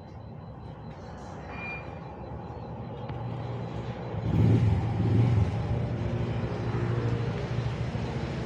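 Car engine running with a steady low hum that grows louder, rising sharply about four seconds in and then holding steady.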